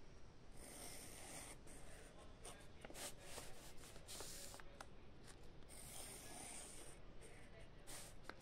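Handwriting on paper: faint scratchy strokes of uneven length, coming in irregular runs.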